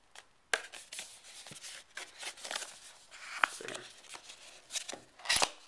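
Cardboard software box being pushed out of its tight paperboard sleeve by hand: rubbing and scraping of card with scattered clicks, a sharp knock about half a second in and a louder cluster near the end.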